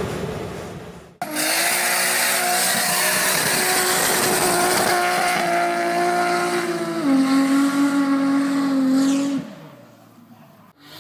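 Toyota Supra's 2JZ turbocharged inline-six held at high, steady revs, with tyres squealing. The pitch drops a step about seven seconds in, and the sound ends abruptly a couple of seconds later. Before it, about a second in, a brief stretch of engine sound fades out and cuts off.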